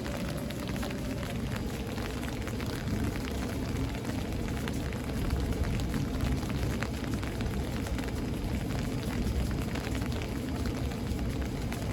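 Steady rain during a thunderstorm, with many individual drops ticking over a constant low rumble that swells slightly about halfway through.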